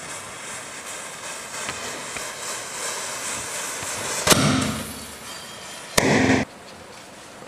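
Matchsticks burning along a chain with faint crackling, then a Diwali firecracker goes off with a sharp bang about four seconds in. A second bang comes near six seconds and cuts off abruptly.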